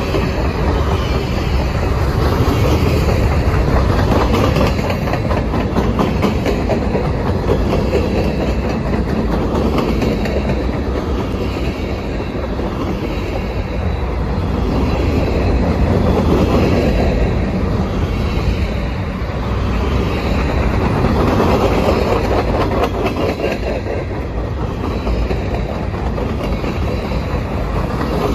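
Freight cars of a long mixed train, tank cars and covered hoppers, rolling past close by: a steady loud rumble with the wheels clattering on the rails, swelling and easing every few seconds.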